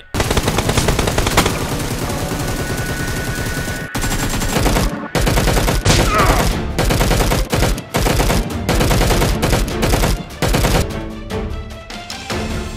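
Rapid automatic gunfire sound effects, firing in long runs with a few short breaks, dubbed over toy-blaster fire. Music comes in near the end.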